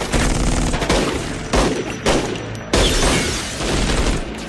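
Heavy gunfire from several weapons: a dense run of shots with loud, booming blasts about once a second.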